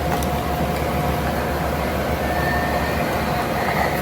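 Steady background hiss with a low hum and no distinct event.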